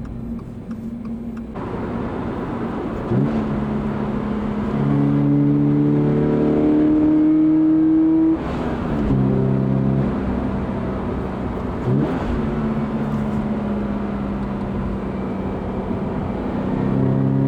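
Toyota GR86's 2.4-litre flat-four engine pulling under acceleration, with K&N cold air intake induction noise. The engine note climbs steadily as it pulls and drops at each upshift, several times, then rises again near the end.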